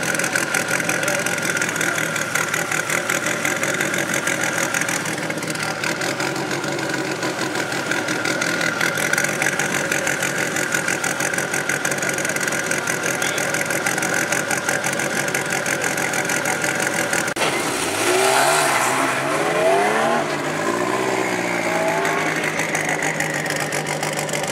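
Renault 5 Maxi Turbo rally car's turbocharged four-cylinder idling with a steady high whine over it. About three-quarters of the way in it is revved in a few blips that rise and fall in pitch, then settles back to idle.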